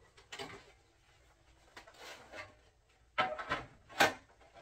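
Toys and small objects being handled and set down on a display shelf: light rubbing and shuffling, then a quick run of knocks a little after three seconds and one sharp, louder knock about four seconds in.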